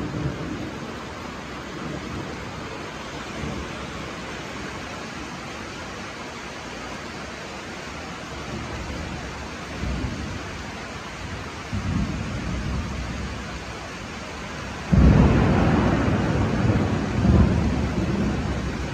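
Steady rain with distant thunder rumbling low. About three-quarters of the way through, a sudden, much louder thunderclap breaks and rolls on to the end.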